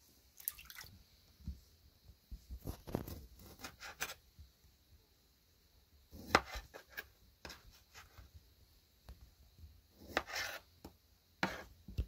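Kitchen knife halving cherry tomatoes on a wet wooden cutting board: irregular cuts and knocks of the blade against the board, several close together, with wet sounds of the juicy tomatoes.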